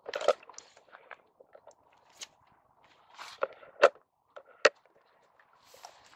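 A phone's microphone being handled and brushed against a jacket: irregular sharp knocks and clicks with soft rustling between them, the loudest few in the middle of the stretch.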